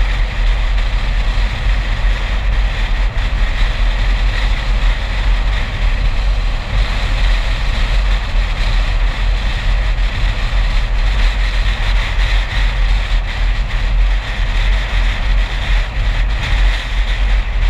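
A car driving along at road speed, heard from a camera mounted on the hood: a steady, loud low rumble of wind and road noise with a hiss over it.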